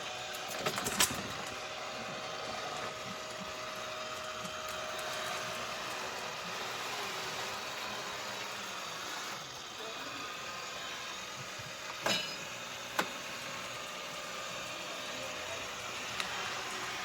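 Tapo RV30 Max Plus robot vacuum running: a steady whirring hum of its suction fan, with a few short sharp clicks near the start and about two-thirds of the way through.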